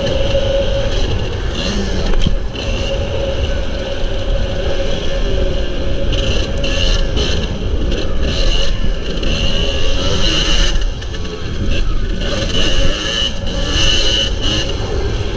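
Kawasaki KDX250 two-stroke dirt bike engine running under throttle while being ridden over a dirt track, its note dropping away briefly a couple of times, with heavy wind buffeting on the microphone.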